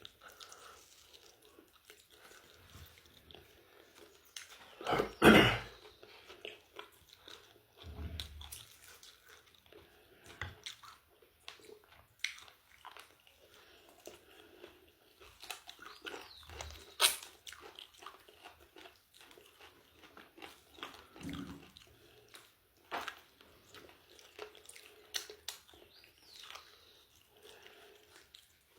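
A person chewing and biting into crispy fried chicken chicharrón, with irregular crunches and small mouth clicks. The loudest crunch comes about five seconds in.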